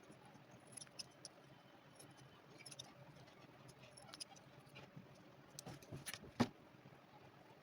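Faint scattered clicks and light taps of hand work, with a few closer together near the end and one sharper knock about six and a half seconds in.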